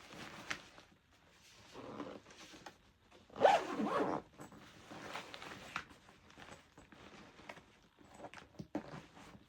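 A bag zipper being drawn in several separate pulls, with the loudest burst about three and a half seconds in.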